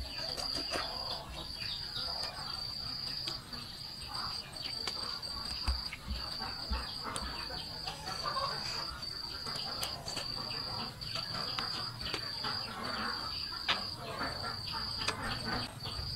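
An insect calls steadily in a high, thin pitch, in pulses that repeat about once a second, with small clicks and mouth sounds from eating by hand close by.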